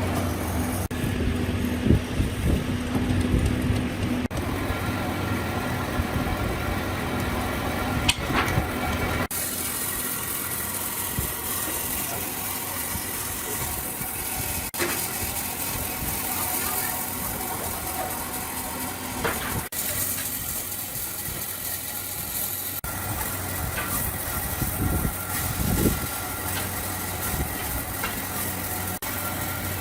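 Workshop machinery and power tools running, in a series of short shots that cut abruptly from one steady machine hum to another.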